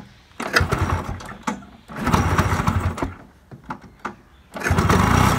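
Bajaj Priya scooter's two-stroke single-cylinder engine being started: it fires briefly twice and dies, then catches near the end and keeps running.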